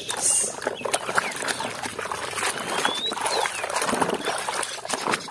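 Muddy water splashing and sloshing in a plastic basin as a toy truck is swished and scrubbed by hand, with trickling and dripping throughout.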